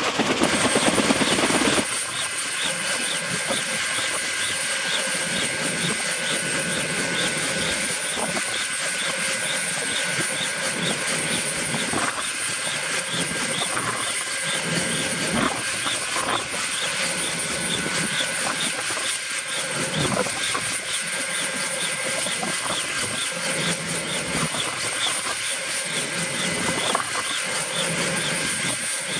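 Kaman K-MAX K-1200 helicopter running on the ground during start-up, its turboshaft engine giving a steady high whine over the swish of its turning intermeshing rotors. A louder rush of noise in the first two seconds gives way to the steady running sound.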